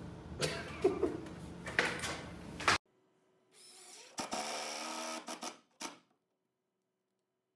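Cordless drill driving a screw through a TV wall-mount bracket into a plywood block: a steady motor whine for about two seconds, ending in a few short pulses as the screw is snugged down. Before it, a few knocks of handling against the room's hum.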